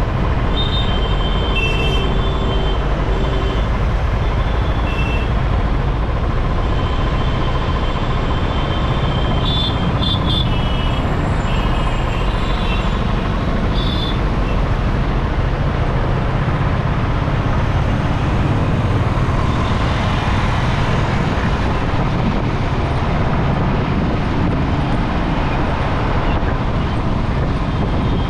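Steady wind and road noise from a motorcycle riding through city traffic, with a few brief high-pitched tones near the start and again around the middle.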